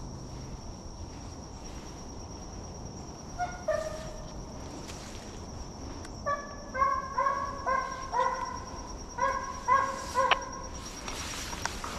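Deer hounds baying in the distance as they work a trail: a string of short pitched bays, a couple about three seconds in, then a fast run of them in the second half.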